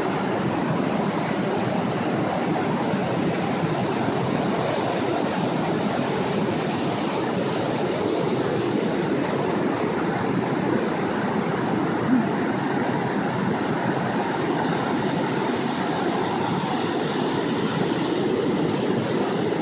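Rogue River whitewater rushing over the rocks of Rainie Falls: a steady, unbroken rush of water, with one brief thump a little past halfway through.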